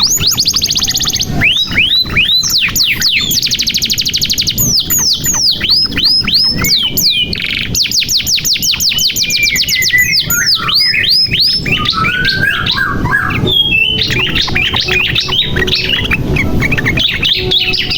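Domestic canary singing a long, varied song. It goes from fast rattling trills to runs of quick downward-sweeping whistles, changing phrase every second or two, and ends in a dense stretch of chattering notes.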